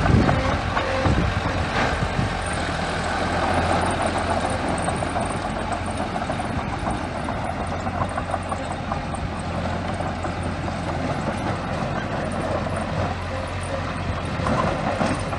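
Small crawler bulldozer working: its diesel engine runs steadily under load while the steel tracks and blade clank and rattle, with a louder clank right at the start.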